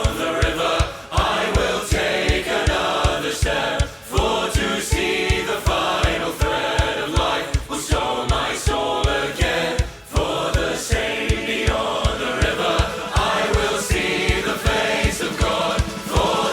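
Power metal music: a choir singing over fast, even kick-drum beats.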